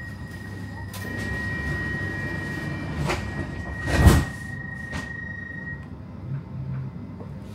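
Stockholm metro car's sliding doors closing at a station: a steady high warning tone sounds for several seconds, and about four seconds in the doors shut with a loud thump, with lighter clicks just before and after. A low hum from the standing train runs underneath.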